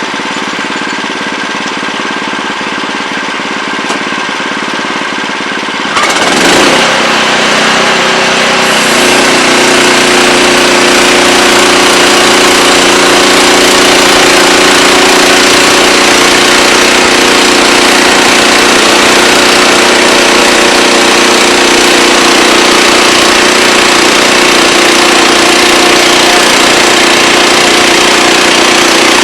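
Wood-Mizer LX25 portable band sawmill's engine running steadily at low throttle, then about six seconds in it is throttled up sharply, rising in pitch for a couple of seconds and then running loud and steady.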